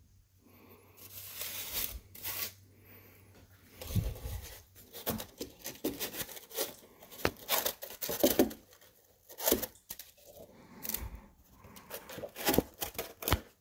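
Small whisk broom brushing leftover flour out of a homemade grist mill's wooden housing and around its grindstone: bristles scratching over wood and stone in short, irregular strokes.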